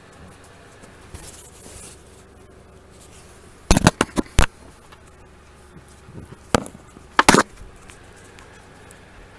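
A quick run of about five sharp knocks a little under four seconds in, then two more near the end, over a quiet background.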